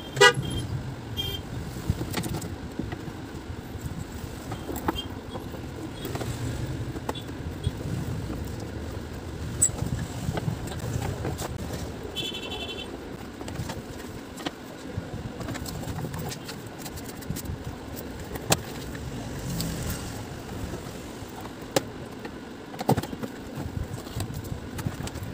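Screwdriver turning screws out of an air cooler's plastic back panel and the panel being handled, giving scattered small clicks and plastic knocks over a steady low background rumble.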